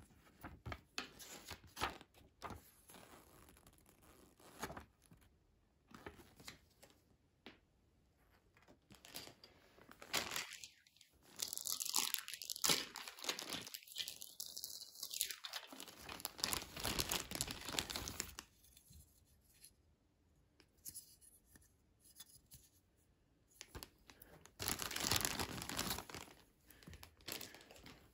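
Clear plastic packaging bags crinkling and rustling as they are handled and pulled open, in irregular bursts, loudest about halfway through and again near the end.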